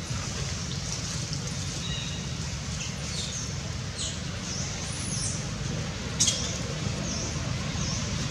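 High, short bird chirps repeating every half second or so over a steady low rumble of outdoor background noise, with one sharp click about six seconds in.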